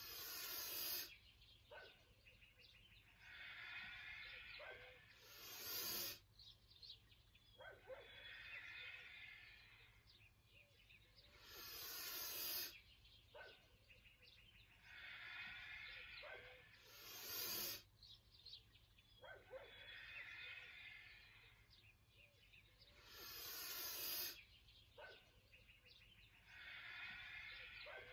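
A person breathing deeply and audibly through the nose in time with squatting up and down: a longer drawn breath, then a short, sharp one, repeating about every six seconds.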